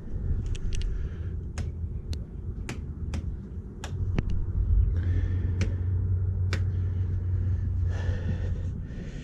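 Kubota BX25D compact tractor's diesel engine running with a steady low hum that grows louder about four seconds in, with a string of sharp clicks and knocks over the first six or so seconds as the backhoe and its new quick hitch are worked.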